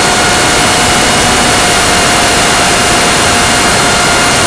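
Loud, steady rush of wind and propeller noise picked up by the Go Discover FPV plane's onboard camera in flight, with an even, high motor whine running through it.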